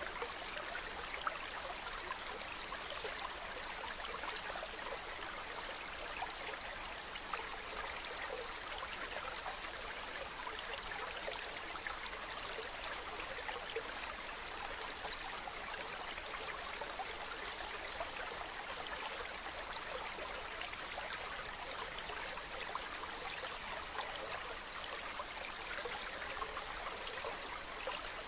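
Mountain stream running steadily over stones, a continuous babble and splash with small droplet flecks through it.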